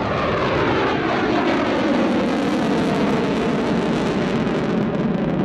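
Panavia Tornado's twin RB199 turbofan jet engines at high power as the jet flies past, the pitch sliding steadily down as it goes by.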